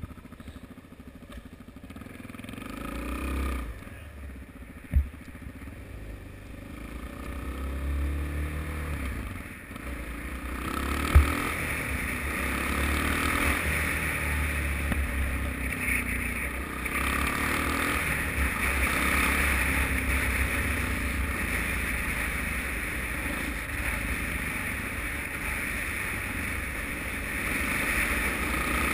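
Suzuki DR-Z single-cylinder four-stroke motorcycle engine under way, the engine note rising in steps as it accelerates, with wind noise building over the helmet-mounted camera from about eleven seconds in. Two sharp knocks, one about five seconds in and one about eleven seconds in.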